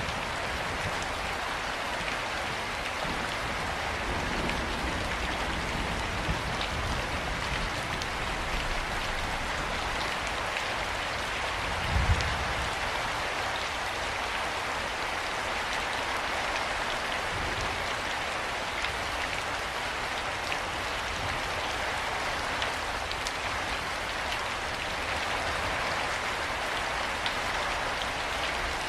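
Steady heavy rain falling, an even hiss of many drops, with one brief low rumble about twelve seconds in.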